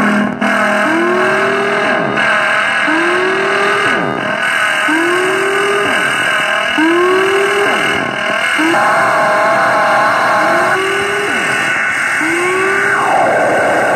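Harsh noise music from effects pedals played through a small guitar amplifier: a dense hiss with steady tones and a rising swoop that repeats about every two seconds, and a brighter blast of noise near the end.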